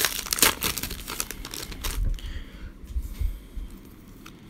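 Foil wrapper of a Leaf Draft football card pack crinkling and crackling as it is handled and opened, loud for about the first two seconds. After that comes softer rustling as the cards inside are slid apart.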